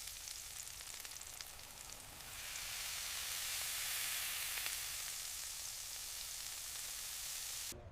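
Hot hamburger patty sizzling, a steady hiss with small crackles. It grows louder about two seconds in and cuts off just before the end.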